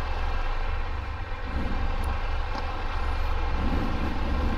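Triumph Tiger 1200 motorcycle's three-cylinder engine idling steadily, with faint voices behind it.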